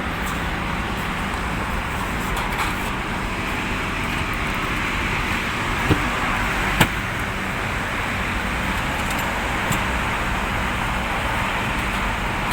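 Refrigerated truck running steadily, a constant engine-like hum, with two sharp metallic clicks about six and seven seconds in as the container door is latched and seal-locked.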